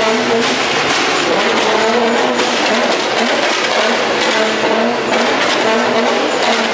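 Nissan GT-R's twin-turbo V6 revving loudly through its exhaust, with short bursts of revs repeating one after another.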